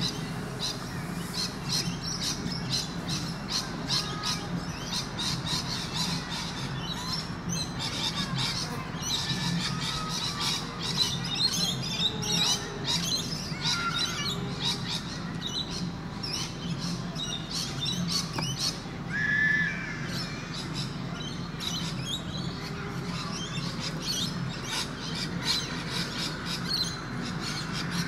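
A flock of noisy birds squawking and chattering, with harsh, rapid calls throughout over a steady low background hum. One brief, clear, louder note comes about two-thirds of the way through.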